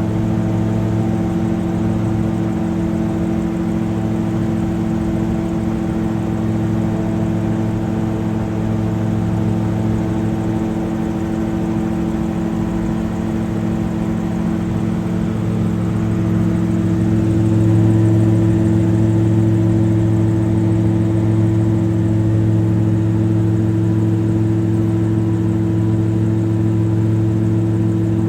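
Multirotor drone's propellers and motors humming steadily, a stack of steady pitched tones that grows slightly louder about two-thirds of the way through.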